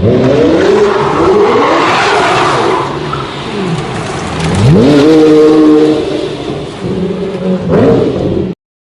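Lamborghini engine revving hard in several rising sweeps, the biggest about halfway through held high for about a second, and another near the end. The sound cuts off suddenly.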